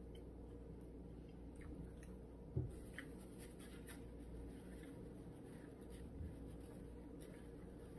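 Faint sounds of someone eating at a table: soft rustles and small clicks over a steady low hum, with one soft thump about two and a half seconds in.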